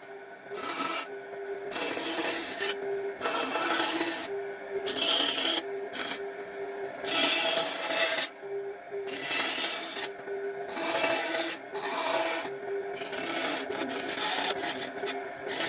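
A hand tool scraping along wood in repeated strokes, roughly one a second, each stroke rough and hissing with a short pause between.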